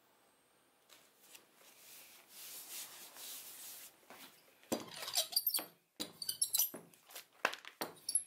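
Leather pieces being slid and pressed down by hand on a plastic cutting board: a soft rustling slide, then from about halfway a string of short, sharp squeaks and crackles.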